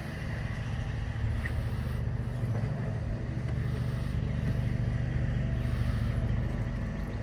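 Steady low mechanical drone, like an engine or motor running, with a faint hiss above it and a small tick about a second and a half in.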